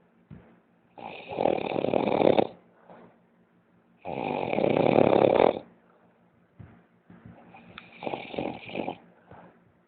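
A man snoring heavily in his sleep: three long snores about three seconds apart, the last one weaker.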